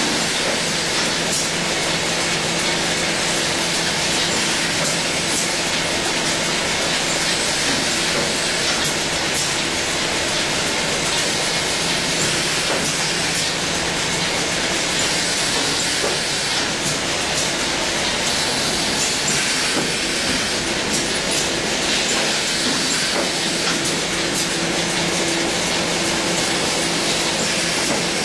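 Automatic bottle cartoning machine running steadily. It makes a continuous mechanical clatter and hiss over a steady low hum, with scattered faint clicks.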